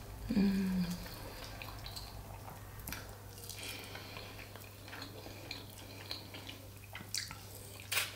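Fingers pulling apart a piece of smoked mackerel close to the microphone, giving scattered soft wet, sticky clicks and ticks. A brief hummed voice sound comes about half a second in, and a sharper click near the end. A steady low electrical hum runs underneath.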